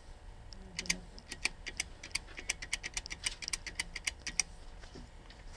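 Metal push-buttons on a DoorKing telephone entry intercom keypad clicking as a phone number is keyed in: a quick, irregular run of about twenty clicks over three and a half seconds.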